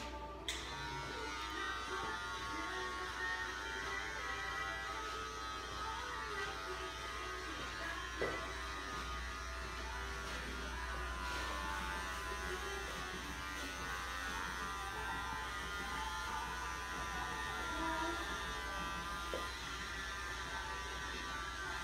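Electric hair clippers running with a steady buzz, with a few faint clicks.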